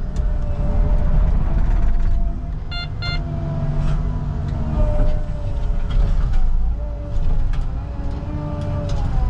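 Caterpillar 306 mini excavator's diesel engine running under hydraulic load while it bends a mobile home's steel frame, with a wavering whine and scattered metal knocks and creaks. A couple of brief high-pitched squeals or beeps come about three seconds in.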